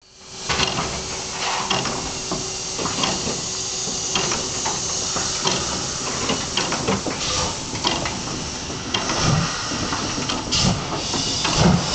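German class 41 two-cylinder steam locomotive hissing steam as it starts away from a standstill. From about nine seconds in, slow, regular low exhaust beats begin.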